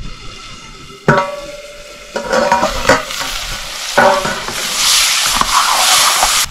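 Food sizzling in a hot metal pan as it is stirred with a metal utensil. There are a few ringing clanks of metal on metal, about a second in, again between two and three seconds, and about four seconds in. The sizzle then grows louder and fuller.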